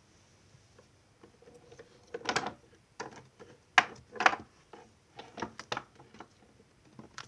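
Irregular crackles and clicks from hands handling slime and its tub. They start about two seconds in and come a dozen or so times over the next five seconds, a few of them sharper and louder.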